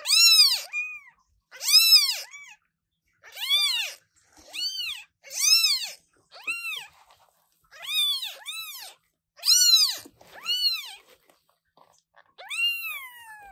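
Young British Shorthair kittens meowing loudly: about a dozen high, thin cries in quick succession, each rising and then falling in pitch, the last one longer with a falling end.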